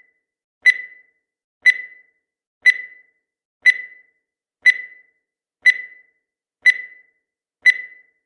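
Electronic countdown-timer beep sounding once a second: eight short, high-pitched beeps, each dying away quickly, with silence between.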